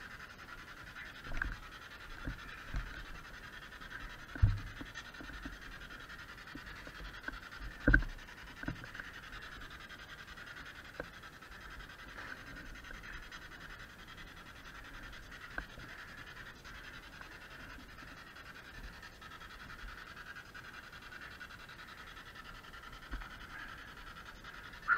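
Dull knocks and bumps from a handheld camera being moved around, the loudest about four and a half and eight seconds in, over a steady hiss.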